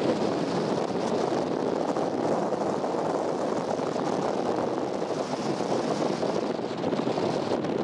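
Steady rushing noise of a car on the move, road and wind noise with no clear engine note and no breaks.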